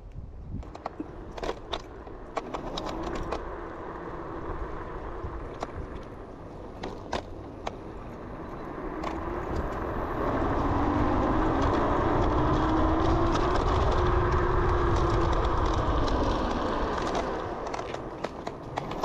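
Kaabo Wolf Warrior electric scooter riding on its dual hub motors under a Flipsky FT85BD controller. The motor whine rises in pitch as it speeds up about halfway through, holds, then falls as it slows near the end. Wind rumbles on the microphone, with scattered clicks and rattles from bumps.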